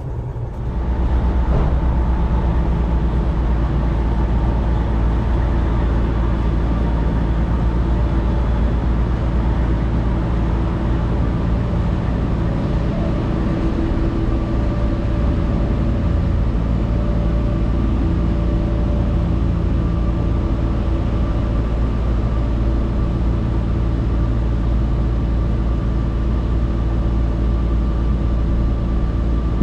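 Peterbilt semi truck's diesel engine running steadily, a constant low drone that gets louder about a second in and then holds.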